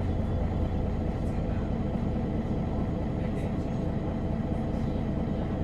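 Diesel engine of a MAN NG313 articulated city bus running with a steady low rumble.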